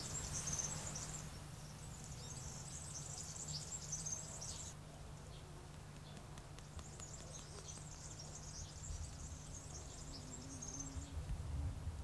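Insects chirring outdoors: high, dense chirring that stops and starts several times, over a steady low hum.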